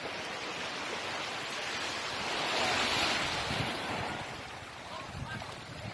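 Small sea waves washing onto a sandy, pebbly beach, with one louder swelling wash about halfway through.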